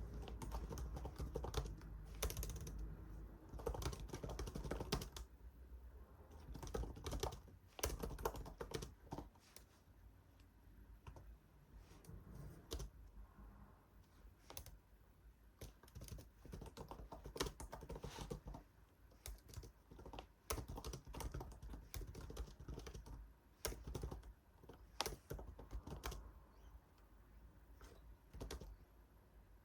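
Typing on a computer keyboard: irregular runs of keystroke clicks with short pauses between them, and some duller knocks in the first few seconds.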